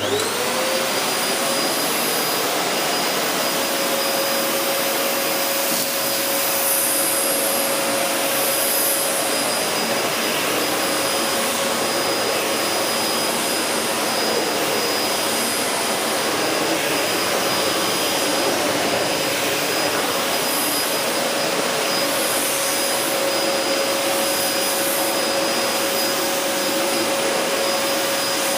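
LG VC1016NNT bagless cylinder vacuum cleaner switched on, its motor spinning up within half a second to a steady run: a loud, even rush of air with a steady whine.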